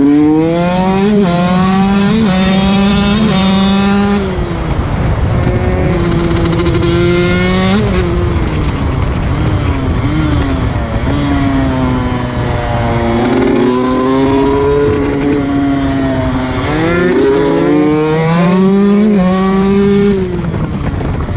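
125 cc two-stroke off-road motorcycle engine being ridden hard. Its revs climb and drop again and again as it shifts through the gears, holding steadier in the middle, then pulling up through the gears once more before easing off near the end.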